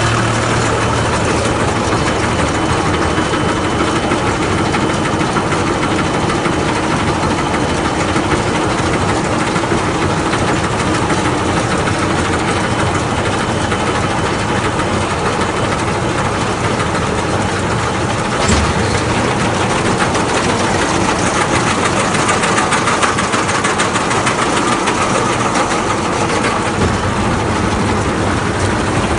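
Tractor-driven baler working maize residue: the tractor engine and baler machinery running steadily. There is one sharp knock about two-thirds of the way through.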